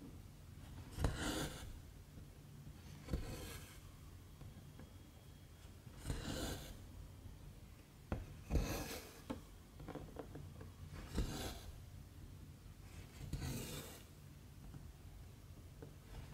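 Cross-stitch thread being pulled through stamped 11-count fabric: six rasping pulls, each about half a second, coming every two to three seconds, with light clicks of the needle piercing the cloth between them.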